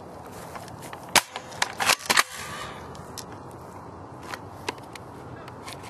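Airsoft guns firing: sharp single pops, with a quick run of several loud shots about one to two seconds in, then scattered single shots.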